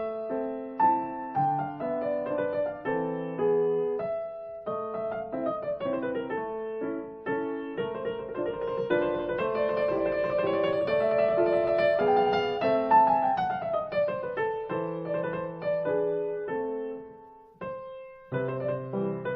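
Solo piano music, with quick runs of notes rising and falling, and a brief drop-out near the end before the playing picks up again.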